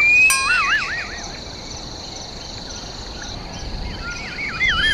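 Bush ambience: wild birds calling with warbling, wavering whistles in the first second and again near the end, over a steady high buzz.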